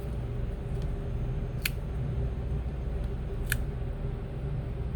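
Two small, sharp clicks about two seconds apart over a steady low hum: small tools handled against the phone during the repair.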